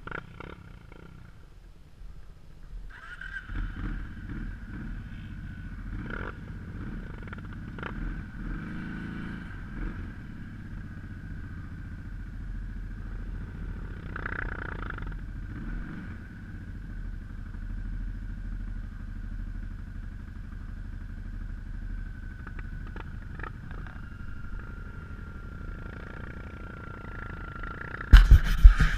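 Off-road vehicle's engine running as it rides across a dirt track, quieter for the first few seconds and then steady under way with a thin high whine over the engine. Near the end, loud rubbing and knocks as a gloved hand handles the camera.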